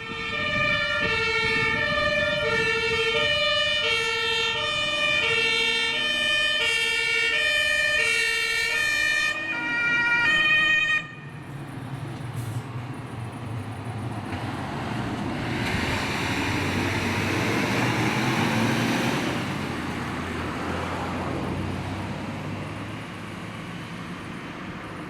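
German fire engine's two-tone siren (Martinshorn) sounding close by, switching evenly between a low and a high tone about once a second, then cutting off suddenly about eleven seconds in. Heavy fire trucks' engines and tyres then rumble past, swelling and easing off.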